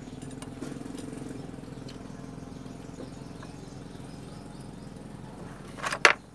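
Rear drum-brake shoe and springs being handled into place on the backing plate, with faint small clicks, then two sharp metallic clacks near the end as the shoe knocks against the plate. A steady low hum runs underneath.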